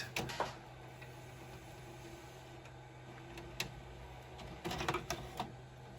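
Panasonic AG-DS555 VHS deck's eject mechanism unloading a cassette: a few clicks at the start, a low steady hum, one click about halfway through, then a run of clicks and clunks near the end as the cassette comes out.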